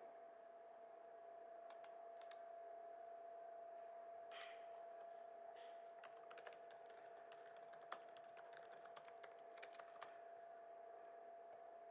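Soft typing on a laptop keyboard: scattered, irregular key clicks, coming in quick runs in the second half, over a faint steady hum.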